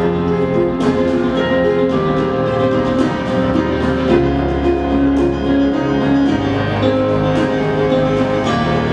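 Instrumental music with long held notes and a few soft percussive accents, playing for a lyrical dance routine.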